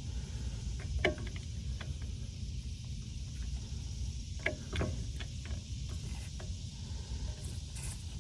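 Brake caliper piston compression tool being worked by hand to push a dual-piston caliper's pistons back in: scattered light clicks and taps over a steady low rumble.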